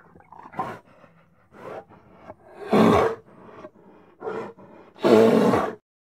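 Grizzly bear growling and roaring in a series of calls: short, softer growls between two loud roars, one about three seconds in and a longer one near the end.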